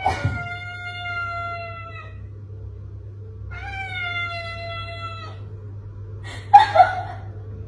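Tabby cat giving two long, drawn-out meows, each held about two seconds and sliding slowly down in pitch, a second or so apart. A short, louder sound follows near the end.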